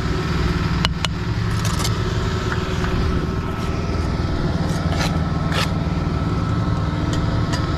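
An engine running steadily with a low hum, with a few sharp clinks and scrapes over it, about a second in and again around five seconds.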